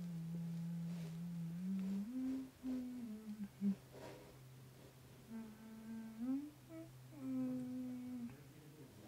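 A person humming a slow tune close to the microphone, holding each note before stepping to the next. A steady lower hum sits underneath from about three seconds in.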